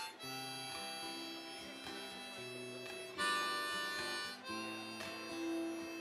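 Harmonica played in a neck rack, held notes and chords over a strummed acoustic guitar: an instrumental break between sung verses. A louder, brighter harmonica chord comes in about three seconds in.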